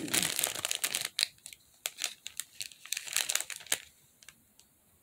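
Clear plastic bag holding rolls of nail-art transfer foil crinkling as it is handled. There is a dense crinkle for about the first second, then scattered sharp crackles that fade out near the end.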